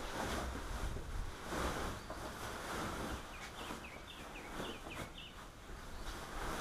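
Outdoor ambience of wind on the microphone, with a bird chirping a quick run of short notes about halfway through.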